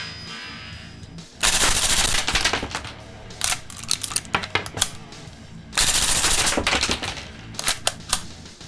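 Marushin cap-firing model UZI submachine gun going off on 7 mm MG caps. A rapid burst comes about a second and a half in, then scattered shots, a second rapid burst near the middle, and a few last shots near the end.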